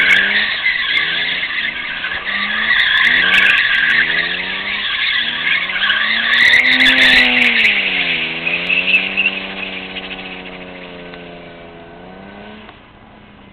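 Car tyres squealing hard under wheelspin, over an engine revving up and down in repeated pulses. About eight seconds in, the squeal fades and the engine note drops and holds. The whole sound grows fainter, and the engine note stops abruptly near the end.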